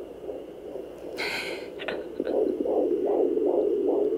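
Handheld fetal Doppler speaker whooshing as its probe searches the belly, with a short scratchy hiss about a second in. From about two seconds in it picks up a rhythmic pulsing of about three beats a second: the unborn baby's heartbeat.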